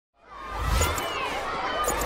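Animated logo intro sting: music fading in from silence with a deep thud about half a second in and a few sharp clicks.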